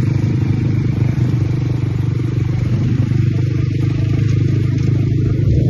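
ATV engine running steadily at an even speed.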